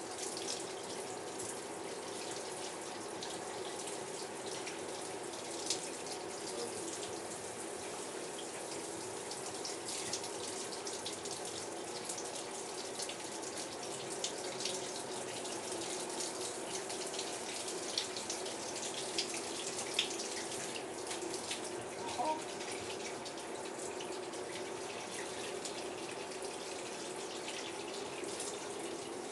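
Shower spray running steadily into a bathtub and onto a wet cat lying in it, a constant water hiss with a few sharper splashes spread through it.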